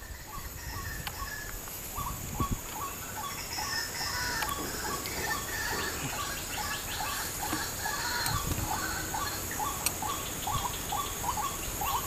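Birds calling noisily in a run of short repeated chirps, several a second and getting busier, over a steady high-pitched hiss. The calls are taken for birds disturbed by a hunter shooting nearby.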